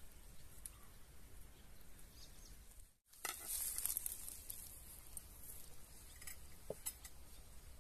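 Quiet outdoor ambience, then after a brief rustle a few soft taps of ceramic tableware set down on a cloth-covered table, one with a short ring near the end.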